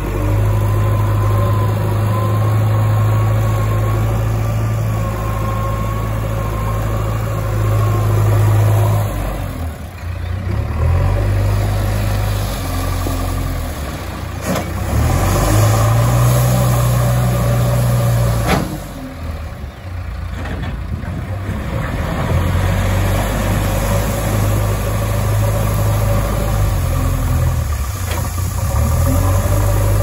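JCB 3DX backhoe loader's diesel engine running and revving under load as the front loader bucket works a pile of gravel, the engine rising and falling with the work. A wavering high whine rides over it for the first several seconds, and two sharp knocks come about midway.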